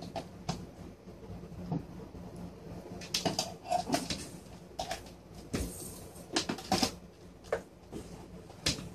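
Irregular clicks and knocks of hands handling small objects and cables, thickest in the middle, over a faint steady hum.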